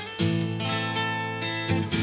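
Background music, with a new chord struck just after the start and another near the end.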